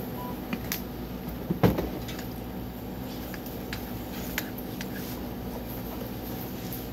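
Light clicks and knocks of plastic containers handled on a counter, the loudest a single sharp knock about a second and a half in, over a steady background hum.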